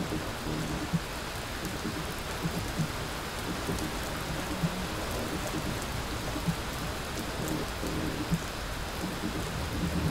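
Steady rain: a dense hiss with light, scattered drop ticks.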